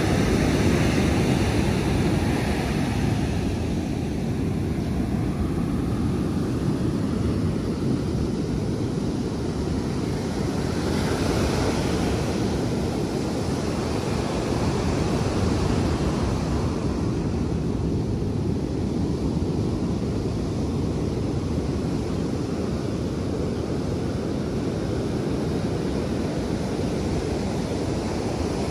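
Atlantic surf washing onto the beach, a steady rush with one wave breaking more brightly about eleven seconds in, under a heavy low rumble of wind on the microphone.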